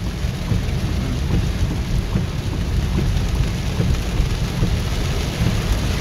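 Heavy rain pounding on a car, heard from inside, with a steady low rumble underneath.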